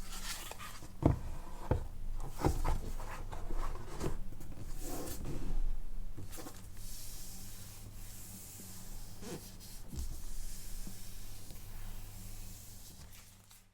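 Hands handling a smartphone and its packaging: rubbing and sliding with several light taps and knocks, over a steady low electrical hum.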